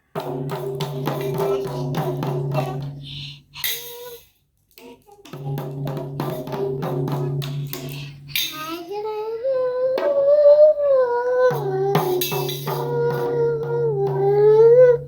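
Music with fast, tambourine-like beats over a steady hum, stopping briefly about four seconds in, then resuming. In the second half a voice sings a wavering melody over it.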